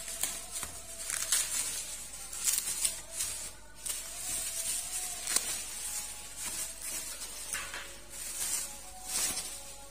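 Plastic bubble wrap crinkling and rustling in irregular bursts as it is handled and pulled open around a box.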